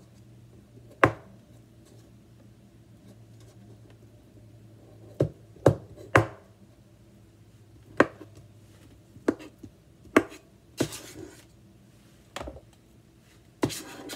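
Chef's knife cutting through avocado flesh and striking a plastic cutting board: about ten sharp, irregular taps, sparse at first and coming closer together in the second half, with a short scrape of the blade now and then.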